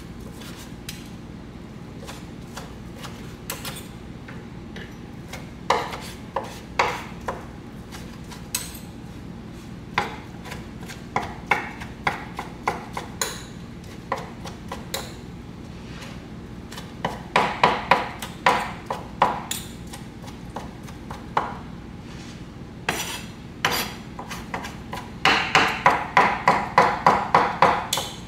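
Kitchen knife chopping cooked chicken on a wooden cutting board. Scattered single knocks at first, then quick runs of chopping at about four strokes a second around the middle and again near the end, over a steady low hum.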